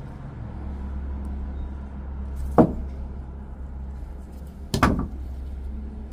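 Two sharp clicks from the small plastic and metal parts of a purge valve being pried apart by hand, the second one doubled, over a steady low hum.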